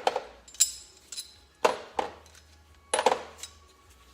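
About five sharp metallic clinks with short ringing: steel bolts handled and set down on metal after being spun out of the flywheel puller.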